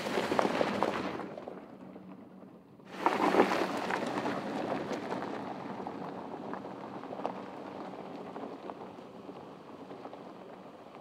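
Porsche Cayenne's tyres crunching over a loose gravel and dirt track, with a dense crackle of stones. It fades over the first two seconds and drops out briefly. It comes back loud about three seconds in, then slowly fades as the car pulls away.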